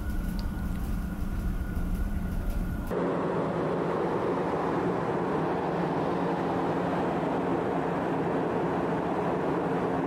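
A car ferry's machinery running: a low rumble with a steady hum inside a cabin, then, about three seconds in, a louder steady rushing noise with a low hum out on the open deck by the funnel.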